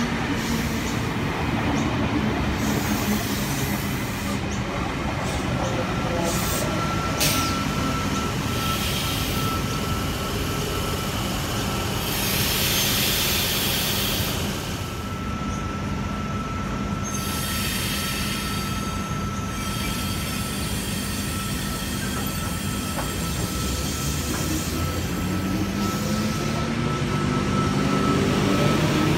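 Double-deck electric intercity trains running past: a steady rumble of wheels on rail with a thin, high wheel squeal running through it. A burst of hiss comes about halfway through, and near the end a whine rises in pitch as a train speeds up.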